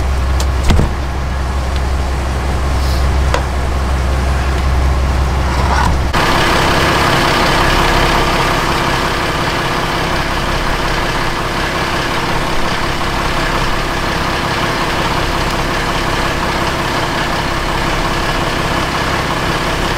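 Fishing boat's engine running steadily, a deep hum; about six seconds in it changes abruptly to a broader, hissier engine noise. A single sharp knock just under a second in.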